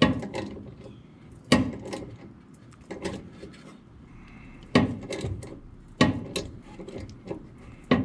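Ratcheting tap wrench being worked to cut threads in the steel license plate bracket: a sharp metal click-knock about every second and a half, six in all, with fainter clicks between. The tap is getting tight in the hole.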